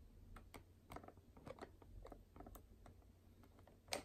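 Near silence broken by faint, irregular light clicks and taps, with one sharper click near the end.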